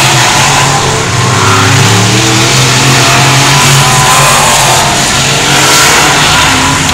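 Dirt-track race car engines running hard around the oval, their pitch climbing and falling again and again as the cars accelerate and back off.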